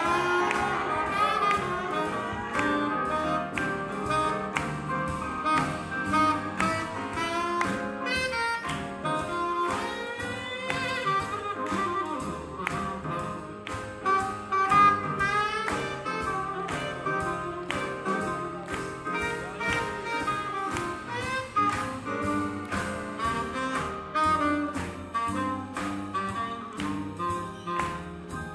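Live swing jazz band: a saxophone plays melody lines with a wavering vibrato over a steady drum beat.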